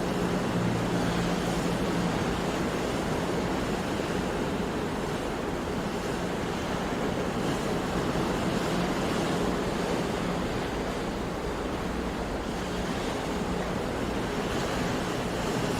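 Sea surf washing in as a steady, continuous rush of noise.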